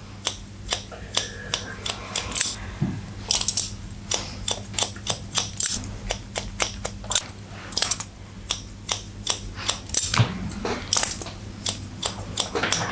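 Barber's hair-cutting scissors snipping through sections of wet hair, a long irregular run of crisp snips, several a second.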